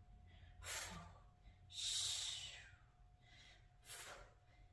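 A woman breathing hard with the effort of kettlebell floor chest presses: three audible breaths, a short sharp one, a longer one, then another short one.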